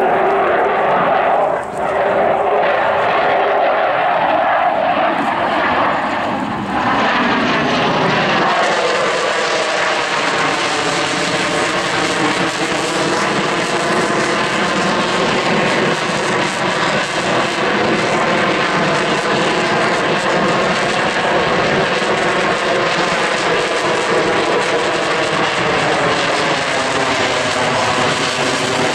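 Sukhoi T-50 (PAK FA) fighter's twin AL-41F1 turbofans at high power during a display manoeuvre: loud, continuous jet noise with a slowly wavering, sweeping tone as the aircraft moves. The sound turns brighter and hissier about seven seconds in.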